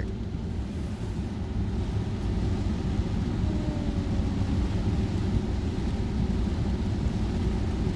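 Steady rumble of a car driving, heard from inside the cabin, with an even hiss of tyres on the wet road and rain over it.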